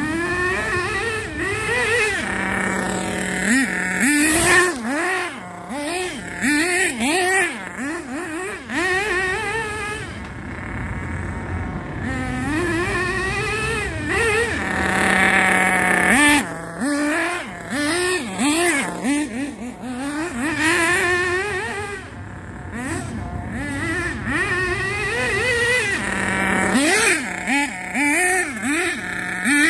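Thunder Tiger EB4 S3 nitro RC buggy's .28 Pro two-stroke glow engine, running on 16% nitro fuel, revving up and down over and over as it is driven, with a few short spells of a steadier, lower note in between.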